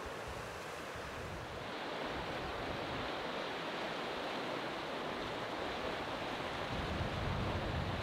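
Steady rushing noise of wind and flowing water, with wind buffeting the microphone in low rumbling gusts that grow stronger near the end.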